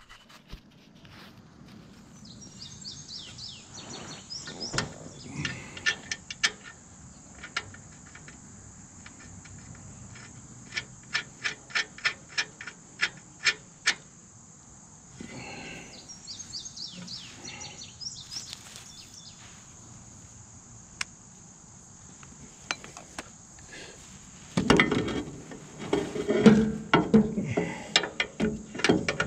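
Hand tools working bolts on the steel skid shoe of a hay mower's cutter head: scattered clicks and knocks, a run of evenly spaced clicks in the middle, and louder scraping and clattering of metal near the end. A steady high insect buzz runs underneath.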